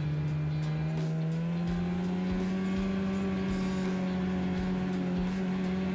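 Polaris snowmobile engine running at steady speed, its drone rising slightly in pitch about a second and a half in.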